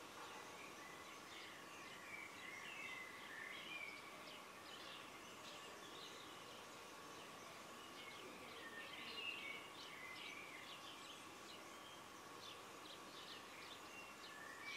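Faint birdsong: small birds chirping and twittering in short, scattered phrases over quiet room noise, with a faint steady hum underneath.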